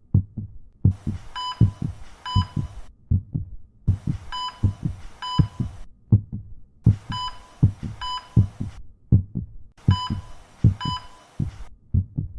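Electronic background music: a heavy low bass pulse, often in pairs like a heartbeat. About every three seconds a two-second wash of hiss comes in, each carrying two short beeps; this happens four times.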